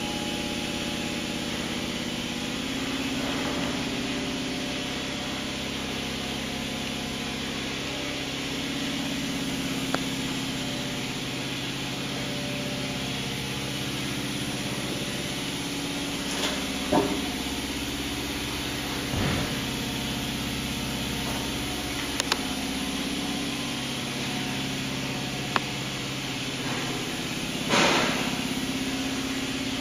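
Steady machine hum with a few scattered knocks and clicks, the loudest knock near the end.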